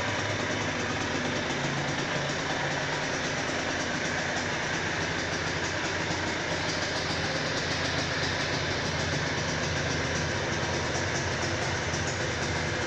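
Aprilia RS 125's single-cylinder two-stroke engine running steadily at idle, with no revving.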